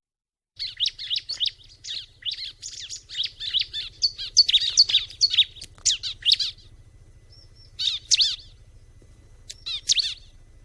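A ciblek (prinia) singing quick, high, chirping notes in a dense run for about six seconds, then two short phrases near the end.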